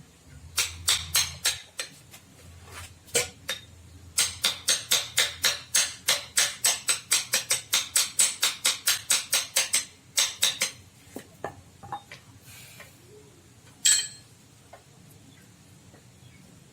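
Sharp metallic clicks or taps from hand-tool work on a steering gearbox: a short run of about six, then a long even run of about four a second for some six seconds, a few scattered ones, and one louder click near the end.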